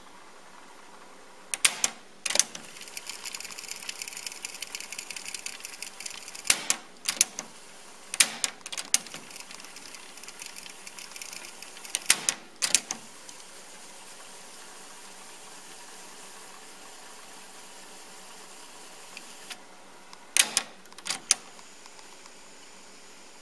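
Sansui SC-1110 cassette deck's piano-key transport controls clunking as they are pressed and released, about five pairs of sharp clicks, with the tape mechanism whirring between presses; the whirring stops suddenly near the end.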